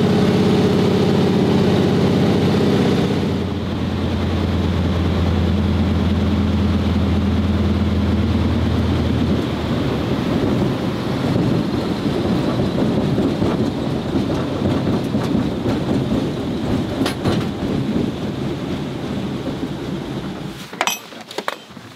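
Floatplane engine and propeller running with a steady drone. The note shifts about four seconds in and drops away near ten seconds, giving way to a rushing wash of water spraying off the floats as the plane runs across the lake. Near the end the wash quiets and there are a couple of sharp clicks.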